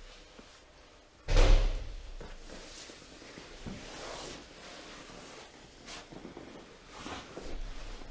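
A single loud, deep thump a little over a second in, then softer scattered handling noises.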